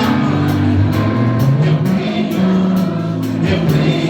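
Live gospel worship band playing, with drums keeping a steady beat over sustained bass and chord notes.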